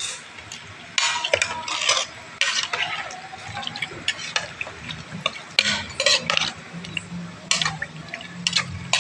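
Metal spoon stirring raw beef pieces, tomatoes and onions in a watery aluminium pot, with irregular scrapes and clinks against the pot and some sloshing liquid. A low steady hum joins about six seconds in.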